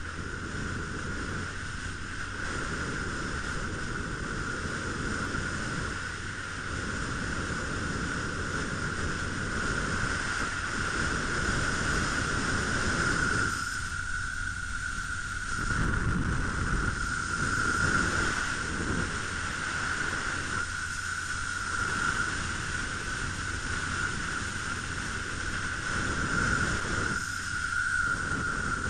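Muffled wind rush and low road rumble on a motorcycle helmet camera whose microphone is covered with tape, swelling and easing as the ride goes on, over a steady high hum.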